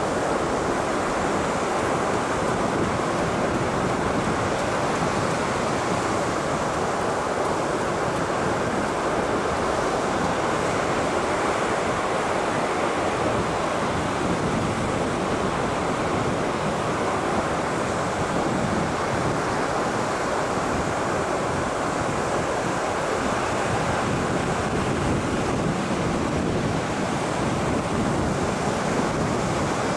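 Ocean surf breaking and washing in a steady, unbroken rush.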